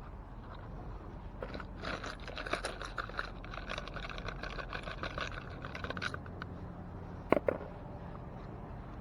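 Small recovered metal finds rattling and scraping as they are handled and sorted, then two sharp knocks about seven seconds in, over a steady low rumble.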